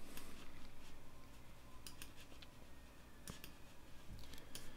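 Faint clicks of a computer mouse, a few scattered, some in quick pairs, over a low room hum.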